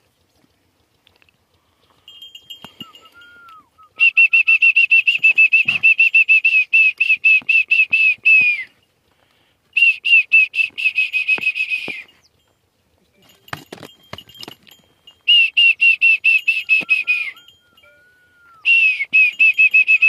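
A loud, high trilled whistle, about five quick pulses a second on one steady pitch, comes in four bursts of two to four seconds each. A few softer, lower whistled glides that rise and fall sound between the bursts.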